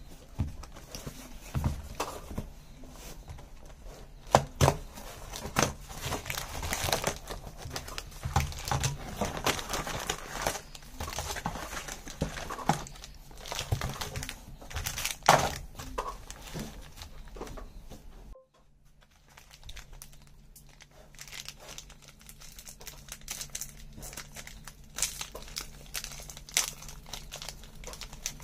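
Foil biscuit wrappers and their cardboard box crinkling and rustling as they are handled, in a dense run of sharp crackles. About two-thirds of the way through it drops to a quiet spell with a faint low hum, then crinkling returns as a foil packet is torn open near the end.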